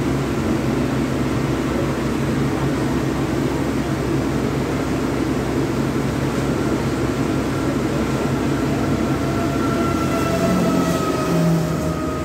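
Steady low rumble of fire-truck diesel engines running at a fire scene, with a faint high tone slowly falling over the last few seconds.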